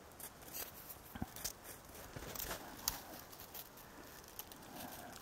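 Siberian huskies chewing on shredded wood and nosing in the snow: faint, scattered crunches and clicks, with one sharper tick about three seconds in.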